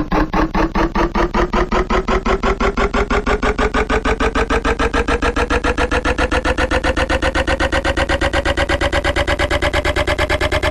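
Electric fan speeding up: a rhythmic pulsing hum whose beat quickens from about three to about eight pulses a second while its pitch rises steadily.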